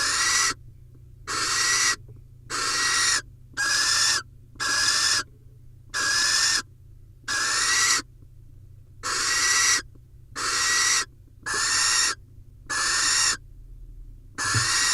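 Barn owl giving a string of hoarse, hissing screech calls, about a dozen, each under a second long and coming roughly once a second: the rasping food-begging call of a barn owl at the nest.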